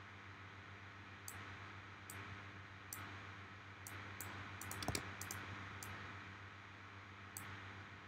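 Faint clicks of a computer mouse and keyboard, scattered singly with a quick cluster about five seconds in, over a low steady hum.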